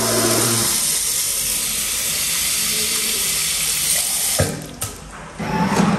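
Water running steadily, as from a washroom tap, shut off abruptly about four and a half seconds in, followed by a few knocks and a short clatter.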